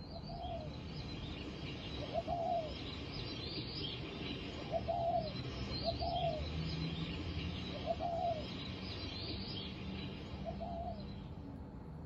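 Spotted dove cooing: a series of short, arching coos, about six in all, with high chirps of small birds behind them.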